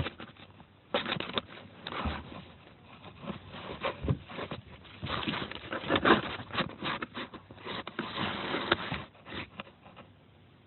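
Handling noise: fingers rubbing and scraping over a phone and its microphone, an irregular run of scrapes and clicks that dies away near the end.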